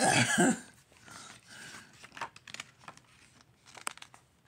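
A brief non-word vocal sound right at the start, then soft paper rustles and light taps as a paperback picture-book page is turned by hand.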